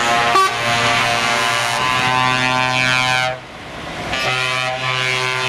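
Truck air horns sounding in long held chords, the pitch changing from one blast to the next, with a short break about three and a half seconds in.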